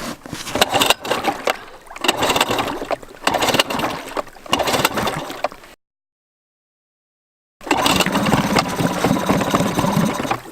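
Small 2.5 hp outboard motor being started: several short loud bursts as it catches and fades, then, after a gap of total silence about six seconds in, running steadily with an even firing beat.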